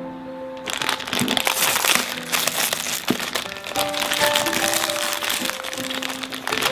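Plastic instant-ramen packet crinkling and crackling as it is torn open by hand, starting about a second in, over background music.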